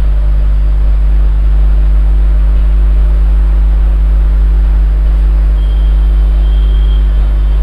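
Loud, steady electrical mains hum: a low drone with a ladder of overtones above it. A faint high whine joins it about two-thirds of the way in.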